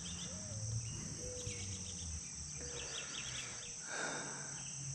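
Steady high-pitched insect drone in summer woodland, with short bird chirps breaking in several times.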